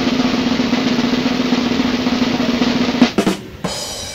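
Snare drum roll in added music, a dense steady rattle that ends about three seconds in on a single sharp hit.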